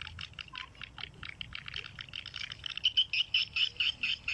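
Swiftlet calls: a fast, even run of short, high chirps, about eight a second, getting louder about three seconds in.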